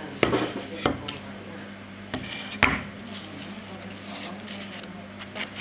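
Sharp clinks and knocks of metal tools and small objects being handled and set down on a workbench, three louder ones in the first three seconds and lighter ones after.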